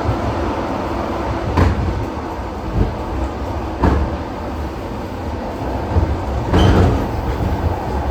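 ED4M electric multiple-unit train running, heard from inside the car: a steady low rumble with sharp knocks about one and a half and four seconds in, and a louder rattle near the end.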